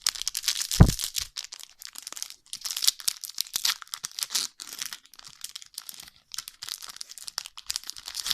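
Foil wrapper of a Pokémon TCG booster pack being torn open and crinkled by hand: a rapid run of crackles and rips, with one low bump a little under a second in.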